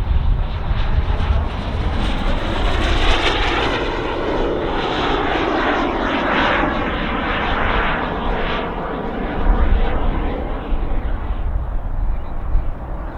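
Turbine engine of a radio-controlled scale Hawk jet in Red Arrows livery flying past: a steady rushing jet noise that swells louder a few seconds in and again near the end.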